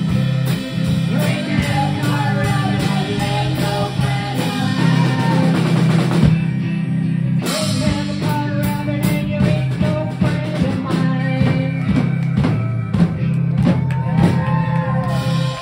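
Live rock-and-roll trio playing: harmonica, guitar and drum kit, with a voice singing over it. Steady bass and a regular drum beat run throughout.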